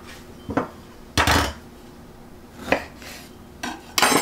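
Kitchen utensils clattering and knocking on the counter and bowl: a handful of short, sharp clinks and knocks, the loudest about a second in and another near the end.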